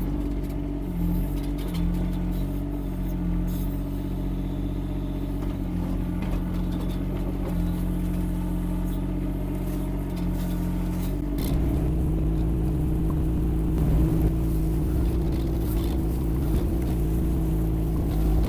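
Yanmar diesel engine of a Kymron XH20D mini excavator running steadily. About eleven seconds in, its note shifts and it grows louder.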